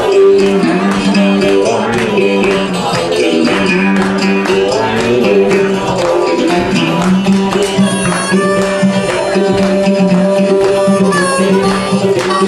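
Live folk-style band music from a duo on stage, with guitars strummed in a steady rhythm and a long held note about two-thirds of the way through.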